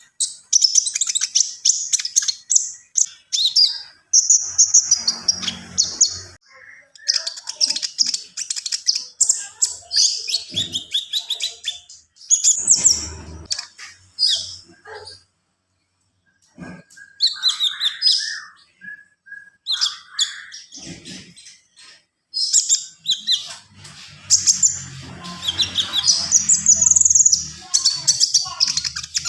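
Captive konin songbird singing vigorously, a long run of fast, high chattering phrases packed with mimicked song fillers, broken by a couple of short pauses.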